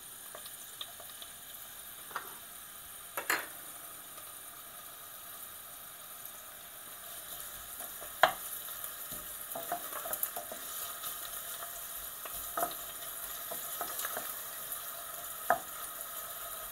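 Chopped onion sautéing in a little hot oil in a stainless steel saucepan, a steady sizzle, while a wooden spoon stirs it and knocks against the pan every few seconds.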